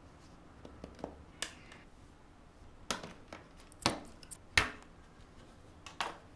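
Irregular clicks and knocks of small hard objects being handled and set down, about eight in all, the loudest two about two and a half and three seconds in.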